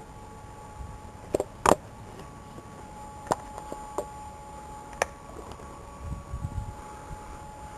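Quiet open-air background at an empty railway line, with a faint steady whine and a handful of sharp clicks from the camera being handled as it pans.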